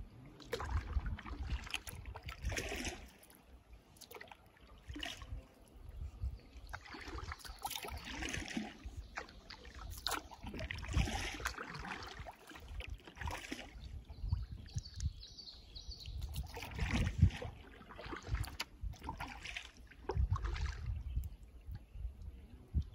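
Kayak paddle strokes dipping and splashing in shallow river water, with water trickling off the blades, coming in uneven bursts every second or two over a low rumble on the microphone.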